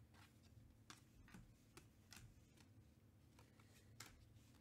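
Near silence with faint, irregular clicks of baseball trading cards being handled and flipped through.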